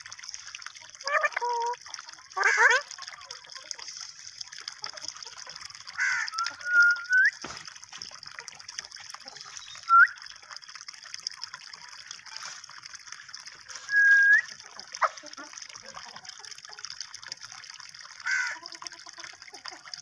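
Water trickling steadily from a pipe into a pit, with short bird calls over it every few seconds, some rising squeaks and a few down-sweeping squawks.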